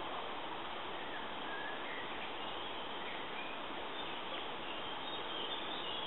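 Steady outdoor hiss of woodland ambience with a few faint, brief bird chirps scattered through it.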